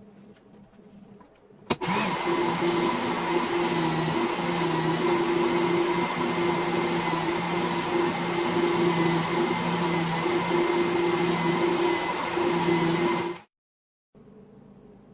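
Work Sharp Ken Onion knife sharpener with the Blade Grinder attachment: its electric belt grinder switches on with a click about two seconds in and runs steadily with a constant hum, sharpening a knife. It stops abruptly about two seconds before the end.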